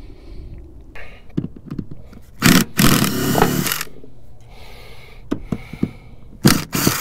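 A handheld cordless power driver runs in one burst of about a second and a half, driving a bit against a fastener on a fiberglass boat hull to back it out. Two shorter bursts follow near the end.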